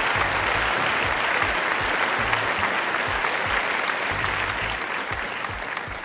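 Applause over background music with a low beat, fading near the end.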